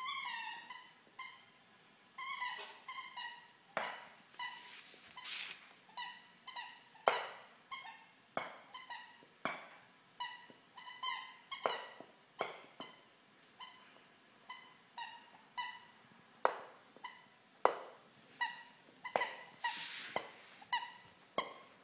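Squeaker in a plush bear toy squeaking over and over as a Shiba Inu puppy chews it, short squeaks of the same pitch about once or twice a second, with sharp clicks in between.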